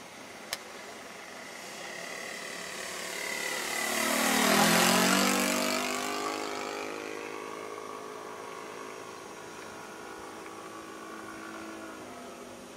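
Propeller engine of a model Cessna making a low pass: it swells to its loudest about halfway through, its pitch dropping as it goes by, then fades to a steady hum as it climbs away at under half throttle. A single brief click about half a second in.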